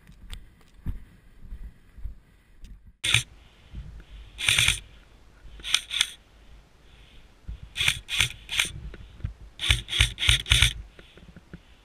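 Airsoft rifle firing single shots in small groups, each a sharp mechanical clack, about a dozen in all, with a quick run of four near the end.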